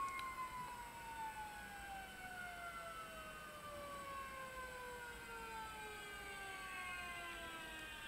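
Stepper motors of a StackShot 3X motion-control pan/tilt rig driving the camera through a programmed move: a faint whine of several tones that fall slowly in pitch together as the motors slow.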